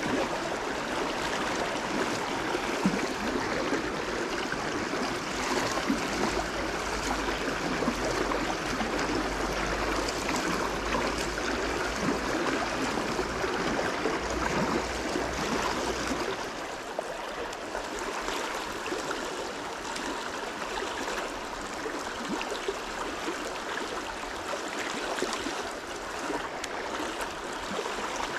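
Stream water running steadily. It becomes slightly quieter about halfway through.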